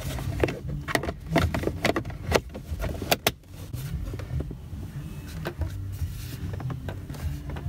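Plastic dash trim clicking and knocking as the change holder is pushed and snapped into place, several sharp clicks in the first few seconds and fewer after, over a low steady hum.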